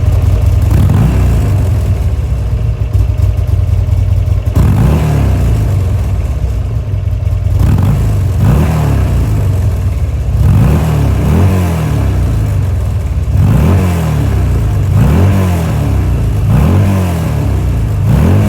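Buell Lightning XB12S's air-cooled V-twin engine, through a Termignoni titanium dual-outlet silencer, idling and then blipped on the throttle over and over, about once every second and a half, from about four seconds in.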